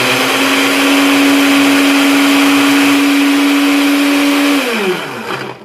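Blokker BL-13103 blender's motor running at a steady pitch, its blades chopping green leaves in the glass jar. About four and a half seconds in it is switched off and winds down, the pitch falling, to a stop near the end.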